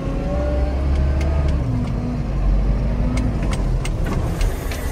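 JCB wheel loader's diesel engine running under load, heard from inside the cab while the machine spins a donut on an icy yard. The engine pitch rises and falls, with scattered sharp clicks and rattles in the second half.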